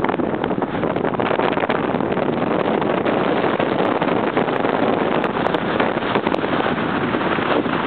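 Steady wind rushing over the camera microphone, mixed with waves breaking on the shore.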